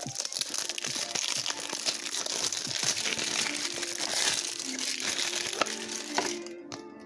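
Plastic wrapping on a pack of football trading cards crinkling as it is handled and torn open, stopping about six seconds in.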